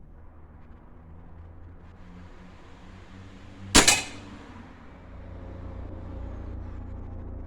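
A single shot from a Remington Express XP .22 calibre break-barrel spring-piston air rifle, about four seconds in: a sharp report, followed a fraction of a second later by a second, smaller crack.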